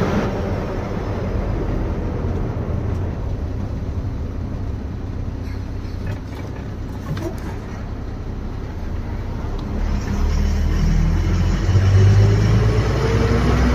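Diesel bus engine and road noise at a steady rumble that eases slightly in the middle. About ten seconds in the engine picks up, its pitch rising as the bus accelerates.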